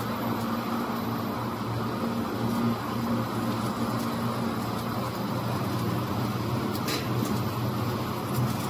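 Pet food production-line machinery running steadily: a low hum with a fan-like whir. A few faint clicks come about seven seconds in.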